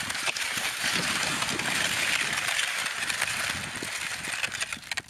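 Järvinen cross-country skis sliding and scraping over crusted, icy snow: a steady hiss broken by scattered clicks and light knocks, fading near the end.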